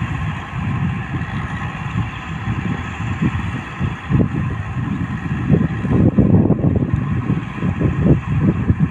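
Motor grader's diesel engine running steadily at a distance, heard as an even drone, with wind buffeting the microphone in gusts that grow heavier in the second half.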